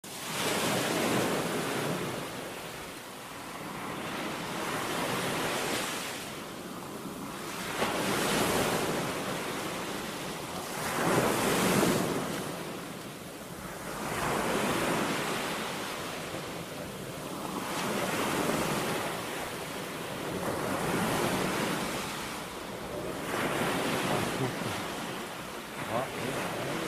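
Ocean surf breaking and washing ashore, swelling and fading in waves every three to four seconds.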